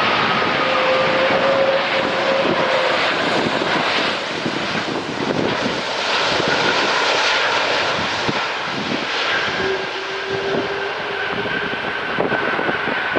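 Jet noise from an Airbus A330-200's Rolls-Royce Trent 700 turbofan engines: a steady, loud rushing with faint whining tones that step to a new pitch a few times.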